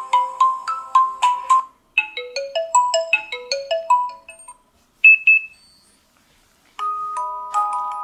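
Lenovo K6 smartphone loudspeaker playing alarm-tone previews, short chiming mallet-like melodies, one after another as different tones are selected. The tune changes about two seconds in, a brief pair of high notes sounds near five seconds, and after a short silence a new melody of longer notes starts near seven seconds.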